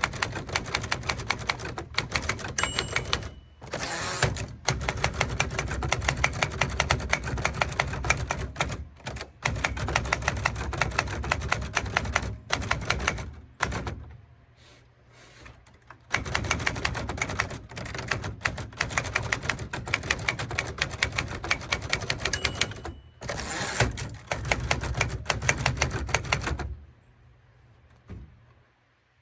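Typewriter keys striking in fast, uneven runs of clicks. The runs pause briefly midway and stop near the end.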